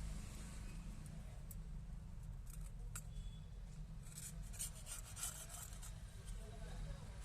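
A series of small, sharp clicks and snips from handling small tools or parts, a few single ones and then a quick cluster about four to five and a half seconds in, over a steady low hum.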